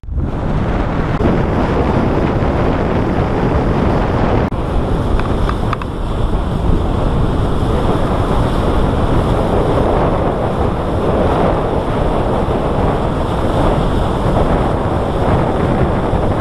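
Wind buffeting the microphone over the steady rush of the bow wave as the Scorpio 72 sailing yacht drives through choppy water under sail.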